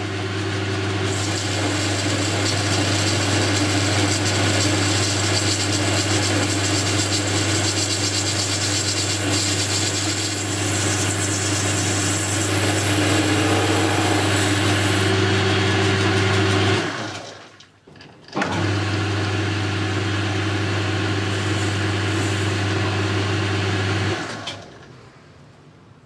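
Boxford metal lathe running, with a turning tool cutting a steel bar: a steady motor hum under a hiss of cutting. It stops abruptly about two-thirds of the way through, starts again a second or so later, and winds down near the end.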